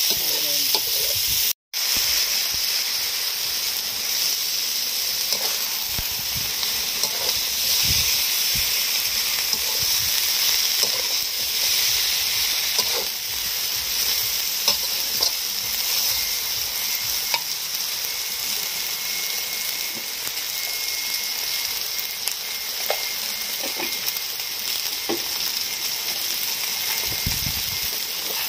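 Glass noodles, egg and cabbage sizzling in a hot wok while a metal spatula stirs and turns them, with scattered light taps and scrapes of the spatula on the wok. The sound cuts out for an instant near the start.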